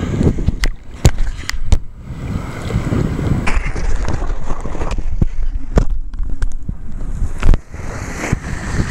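Sea water sloshing and splashing around a camera held in the surf, with a steady low rumble. Several sharp knocks and splashes come near the start and again near the end.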